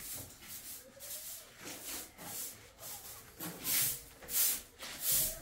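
Short hissing strokes, about two a second, louder in the last two seconds, as a pane of window glass is cleaned.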